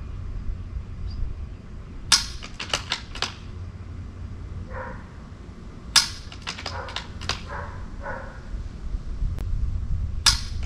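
.22 rimfire rifle shots, three of them about four seconds apart, each crack followed by a quick run of sharp clicks.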